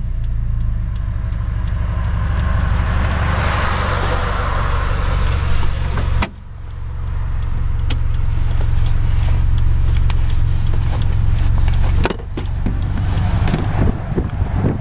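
Subaru Impreza 2.5RS wagon's 2.5-litre flat-four running through a Tsudo N1 catback exhaust, heard from inside the cabin while driving. A steady low exhaust drone swells about 3 to 4 seconds in, then drops off sharply about 6 seconds in and again about 12 seconds in.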